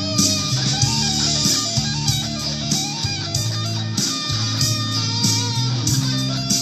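2005 Gibson Supreme electric guitar playing a melodic line of quick stepping notes over a full band with bass and drums, its cymbals keeping a regular beat.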